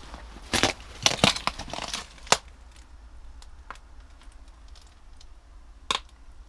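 Footsteps crunching over loose debris: a run of loud crunches in the first couple of seconds, then quiet with one sharp crunch near the end.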